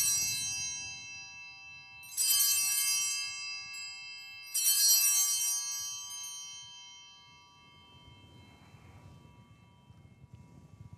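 Altar bells rung three times, about two and a half seconds apart, at the elevation of the chalice during the consecration at Mass. Each ring is a bright jangle of several small bells that fades away over about two seconds.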